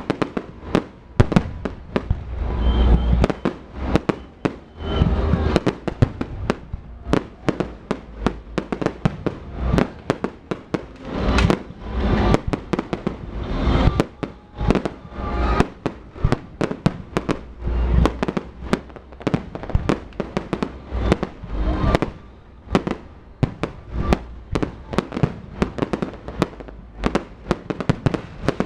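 Fireworks going off in a rapid, continuous barrage of sharp bangs and crackles, with deeper, louder booms every few seconds.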